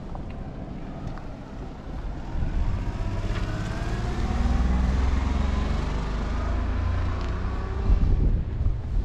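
A motor engine passing by, swelling about two seconds in and fading near the end. Wind buffets the microphone near the end.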